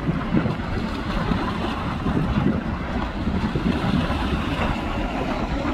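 Erupting volcanic vent with lava fountaining: a steady, dense rumble with an irregular crackling texture, with wind buffeting the microphone.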